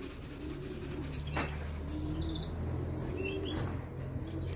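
Racing pigeons cooing in low, wavering notes, with quick high chirps from other birds over them and one sharp click about a second and a half in.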